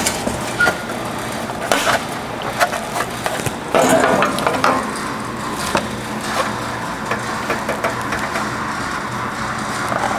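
Irregular knocks and clanks of a sheet-metal fender panel being worked and handled by hand, with a denser run of knocks about four seconds in, over a steady low hum.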